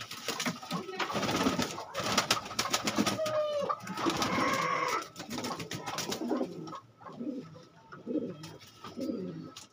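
A flock of Rajasthani bajra pigeons cooing, with sharp wing flaps and clatter through the first part as a bird flies up the wall.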